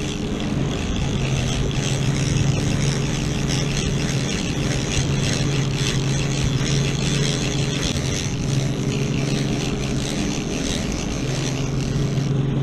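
Large conventional trolling reel being cranked under the load of a hooked wahoo, its gears ticking rapidly, over the steady drone of the boat's engine and rushing water.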